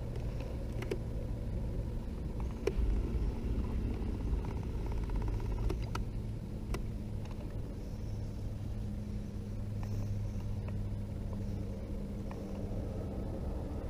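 Small boat motor running with a steady hum that shifts slightly in pitch a few times, with a few light knocks.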